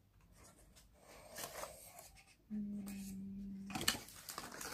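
Paper and plastic packaging rustling and crinkling as it is handled, with a short hummed note, a steady low 'mmm' of about a second, just past halfway, and a sharp crinkle near the end that is the loudest moment.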